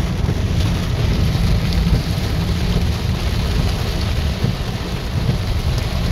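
Heavy tropical rain falling steadily on a car's windshield and the wet road, with a deep low rumble underneath throughout.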